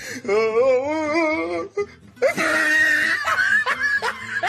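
A long call with a wavering pitch, lasting about a second and a half, then people laughing over music.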